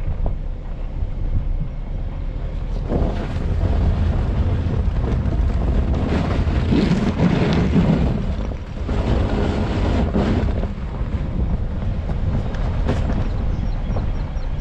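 Vehicle on Falken Wildpeak A/T Trail tyres driving through sand, a steady deep rumble with wind buffeting the microphone. The noise swells several times, around four, seven and ten seconds in.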